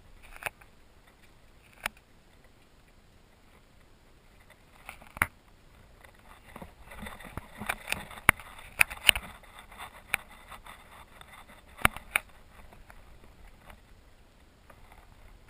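Scattered sharp clicks and knocks over a faint steady hiss, with a busier run of them about seven to nine seconds in.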